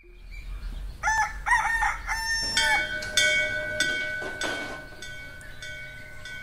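A rooster crows once, a cock-a-doodle-doo in three gliding parts with the last held longest. It is followed by steady ringing tones with light ticks that fade slowly.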